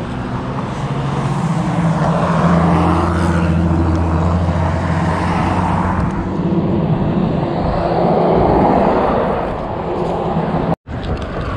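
Road traffic going by on a bridge: a vehicle's engine drone holds steady for a few seconds, then a car swells past about eight seconds in. The sound cuts out for a moment near the end.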